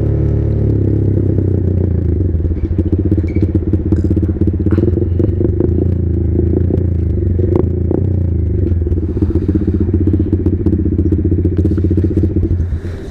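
Motorcycle engine running at a steady pitch while riding, with scattered clicks and rattles over it. The engine note drops away near the end.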